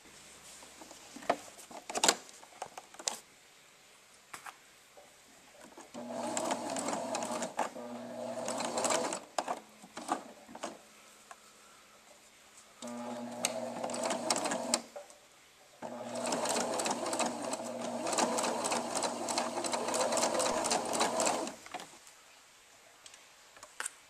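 Domestic electric sewing machine stitching through fur pelt, running in three bursts of a few seconds each with short pauses between them. Before it starts there are a few sharp clicks.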